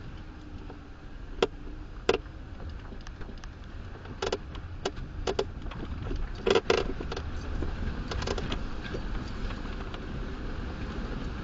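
Off-road vehicle crawling through a shallow rocky creek crossing: a steady low rumble of engine and tyres, with a scatter of sharp knocks and clinks, the loudest about a second and two seconds in and again past halfway.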